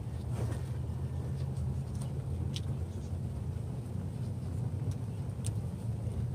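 A steady low rumble with a few faint ticks.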